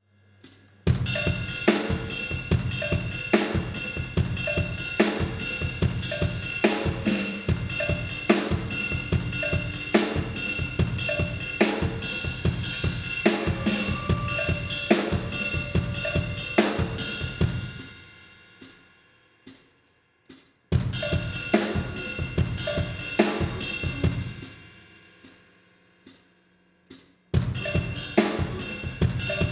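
Funk band music driven by a busy drum kit (snare, hi-hat, cymbals and kick) with steady sounds underneath, entering about a second in. The band dies away twice into gaps with a few single hits and comes back in sharply each time, the second time near the end.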